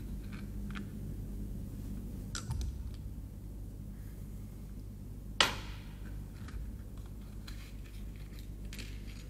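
Quiet room tone with a steady low hum, a few faint clicks in the first three seconds, and one sharp click about five and a half seconds in.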